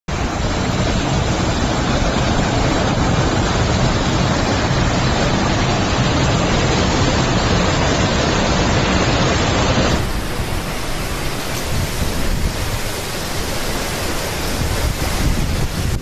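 Storm wind and heavy rain making a loud, steady rushing roar, with wind buffeting the microphone. About ten seconds in it changes abruptly to a brighter, gustier rush with less low rumble.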